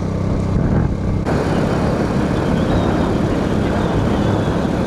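A vehicle engine running with a steady hum. About a second in, a loud rush of wind and road noise suddenly comes in and covers it for the rest of the stretch, as the vehicle moves along the road.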